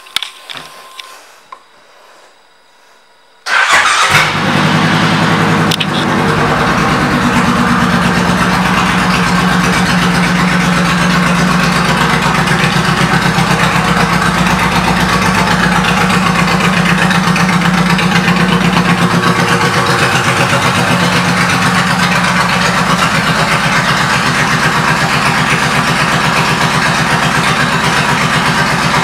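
A 2016 Suzuki Boulevard C90T's V-twin, fitted with an aftermarket Freedom exhaust, starts about three and a half seconds in, catches at once, then settles into a steady idle. A few faint clicks come before the start.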